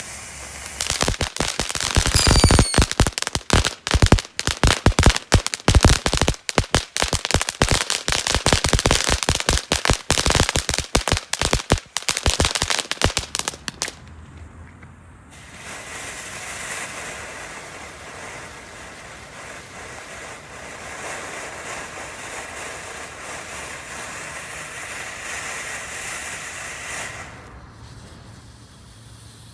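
Brothers Pyrotechnics garden firework fountains: a dense, rapid crackling for about thirteen seconds, then a steady hissing spray that cuts off suddenly near the end.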